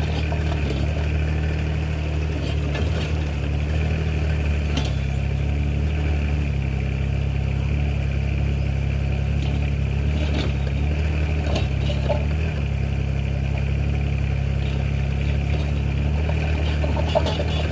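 Mini excavator engine running at a steady speed, with a few faint knocks along the way.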